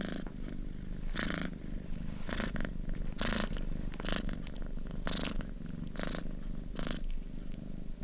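Domestic cat purring steadily, a continuous low buzz that swells with a louder pulse about once a second as it breathes in and out.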